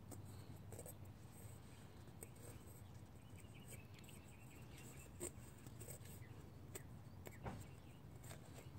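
Near silence with faint rubbing and a few small clicks, the handling noise of a rag being worked in and pulled out of a small oil canister during cleaning.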